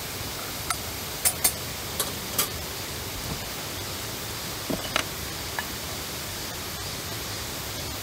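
A steady hiss with several short, sharp clicks and light knocks, clustered in the first couple of seconds and again around five seconds in.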